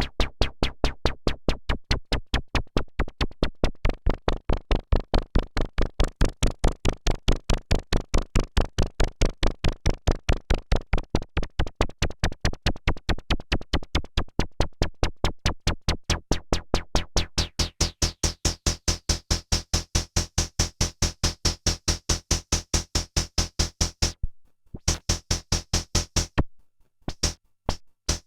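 EDP Wasp monophonic analogue synthesizer playing a fast, even run of short percussive notes, about four to five a second. The tone turns brighter about two-thirds of the way through, and the pattern stops briefly twice near the end.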